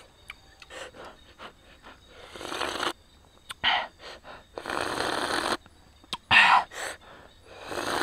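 Slurping broth straight from the edge of a bamboo tube of cooked eel and mushrooms: about five sucking slurps, the longest lasting about a second midway.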